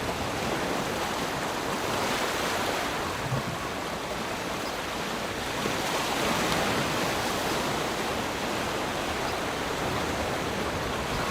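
Waterfall: a steady, even rush of falling water, swelling slightly now and then.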